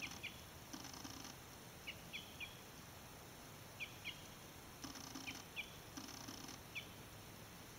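A small bird calling in short, high chirps, often two or three close together, a handful of times over faint outdoor hiss.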